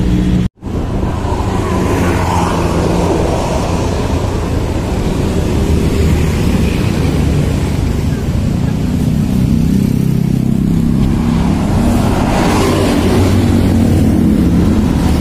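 Motorcycle engine running steadily while riding in traffic, with wind and road noise on the microphone. The sound cuts out for a split second about half a second in.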